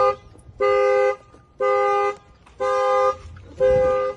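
Car horn sounding in even pulses, about one half-second two-note honk a second: the car's anti-theft alarm going off on a 2016 Dodge Dart.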